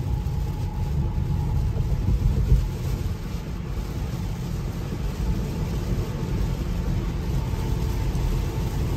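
Steady low rumble of road and rain noise inside the cabin of an electric Tesla Model 3 at highway speed: tyres hissing on a soaked road and heavy rain on the car.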